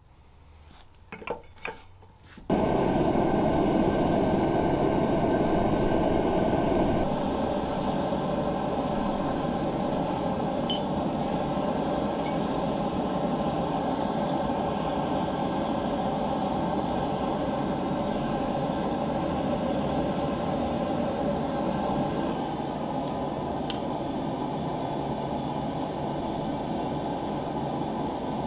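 A few light clinks of steel tools, then, about two and a half seconds in, a gas forge's burner comes in suddenly as a loud, steady roar of flame that runs on unbroken.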